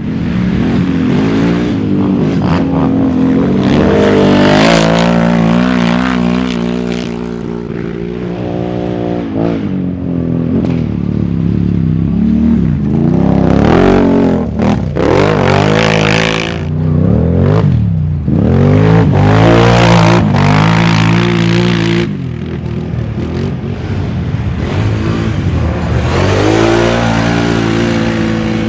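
Racing quad (ATV) engines revving hard, the pitch climbing and falling again and again as the riders work the throttle through deep sand and ruts.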